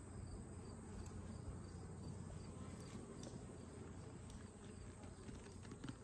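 Faint outdoor ambience of steady insect chirring, typical of crickets in late summer, over a low steady hum, with a few light ticks.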